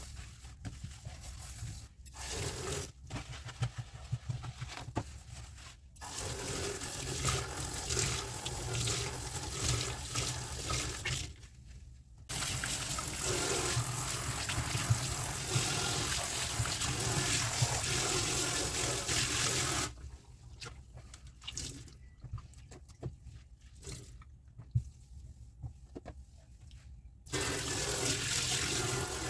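Kitchen tap water running onto dishes in the sink, turned on and off in several stretches, the longest and loudest about eight seconds. In the quieter gaps, dishes clink and are handled.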